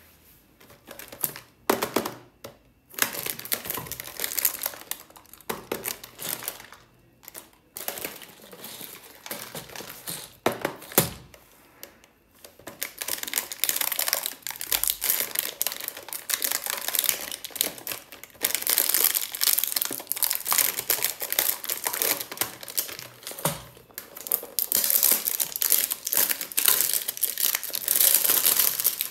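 Clear plastic shrink-wrap on a cardboard candy box being crinkled and pulled by hand. Scattered crinkles at first, then dense, nearly continuous crinkling from about twelve seconds in.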